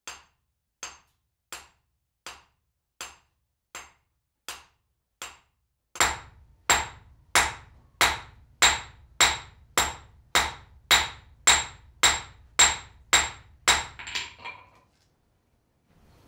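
Swordsmith's hammer striking steel on an anvil: about eight lighter blows at an even pace, then from about six seconds in a faster run of much heavier blows, ending in a few quick lighter taps.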